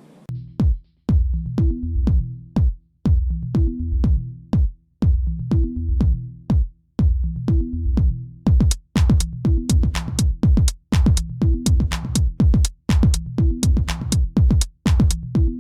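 Electronic dance music with a steady drum-machine beat of about two hits a second and a repeating bass line; more high percussion joins about halfway through.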